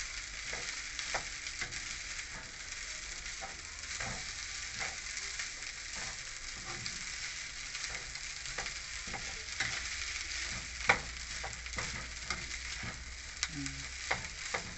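Cooked rice being stir-fried in a frying pan: a steady sizzle with the spatula scraping and tapping against the pan over and over, one louder knock about eleven seconds in.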